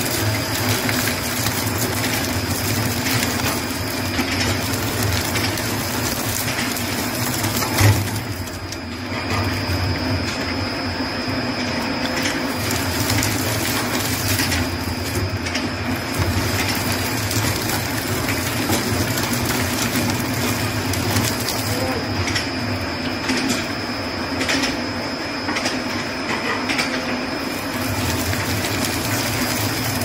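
Twin-shaft wood shredder running, its interlocking toothed cutter shafts crushing dry straw and wood waste with continuous crackling and grinding over a steady high whine. One sharp crack stands out about eight seconds in.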